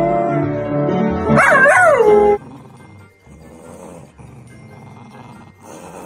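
Golden retriever howling: one long held note that wavers up and down and then cuts off about two and a half seconds in.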